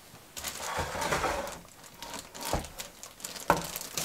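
Handling noise as purchases are moved about: soft rustling, then a few light knocks.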